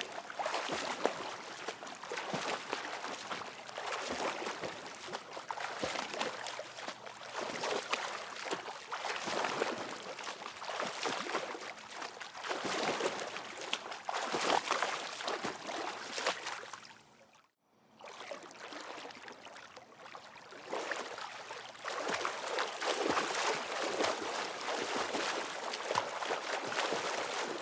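A person swimming in a swimming pool: continuous churning and splashing of water from the strokes, swelling and easing every few seconds, with a momentary break about two-thirds of the way through.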